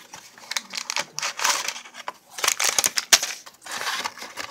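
Cardboard instant pudding box and its packaging being opened by hand: crinkling, crumpling and tearing in irregular bursts, with a sharp click about three seconds in.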